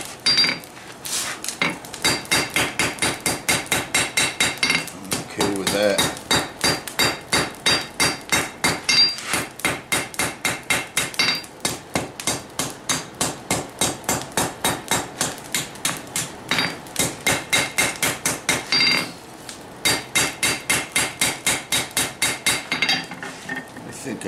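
Hammer striking hot steel on an anvil in quick runs of about three blows a second, each blow ringing with a clear high tone, broken by short pauses about five seconds in and near the twenty-second mark. The smith is drawing down the tang of a small knife forged from a sickle bar mower guide.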